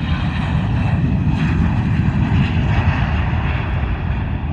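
Airbus A320 jet engines at take-off thrust: a loud, steady low rumble with faint high engine tones above it.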